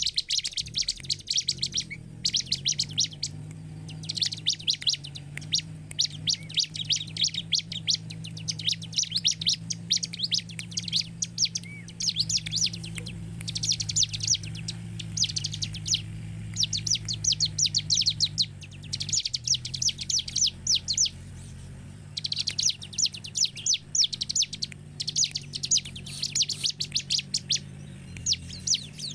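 Bar-winged prinia (ciblek) singing: rapid, chattering strings of high notes in repeated bursts a second or two long with short pauses between. A low steady hum runs underneath.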